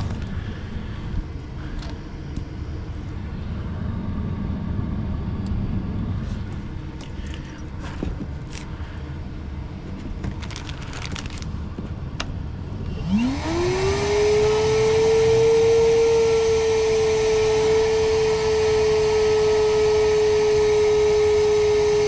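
Low, steady background noise with scattered clicks and knocks. About thirteen seconds in, a vacuum motor switches on: its whine rises quickly and then holds steady and loud as it sucks out a heavily clogged condensate drain line.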